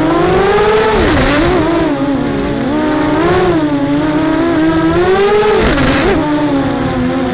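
Electric motor and propeller whine of a small radio-controlled aircraft in fast, low flight, heard from its on-board camera. The pitch rises and falls as the throttle changes, with quick dips and wobbles as it turns.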